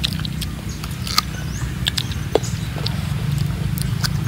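Biting and chewing firm, crisp fruit: scattered sharp clicks and crunches over a steady low hum.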